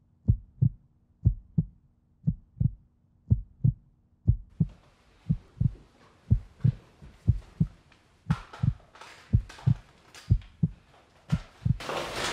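Heartbeat sound effect: a steady lub-dub, a pair of low thumps about once a second. A faint hiss builds underneath from about the middle, and a noise swells up in the last moment.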